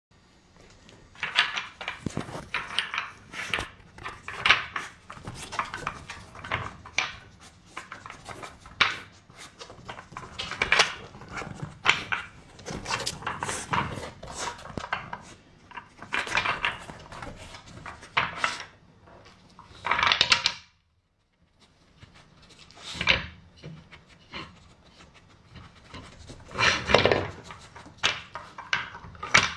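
A dog working a puzzle toy: irregular clattering and knocking of the toy's pieces being moved, with the dog's breathing. It breaks off for about a second just past the middle.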